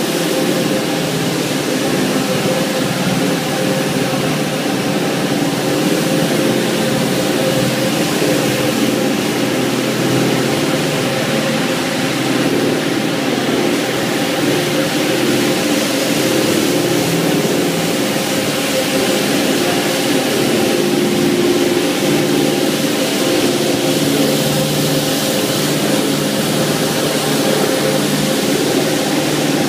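BRS 320 automatic carpet washing machine running: its brush motors and gearboxes hum steadily, with a few steady tones, while the rotating brushes scrub the wet, foamy carpet.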